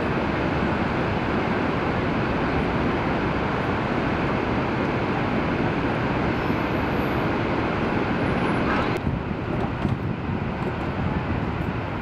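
Steady, loud roar of Niagara Falls and the churning river below, with no distinct events; about nine seconds in the roar drops slightly and sounds thinner.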